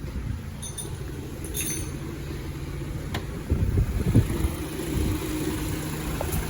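BMW X3 diesel engine idling steadily, with a few light clicks in the first few seconds.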